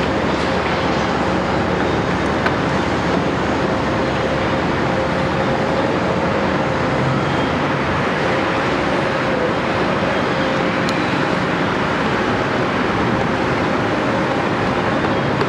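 Caterpillar 329E excavator's diesel engine running steadily, with a faint steady whine held over the even machine noise.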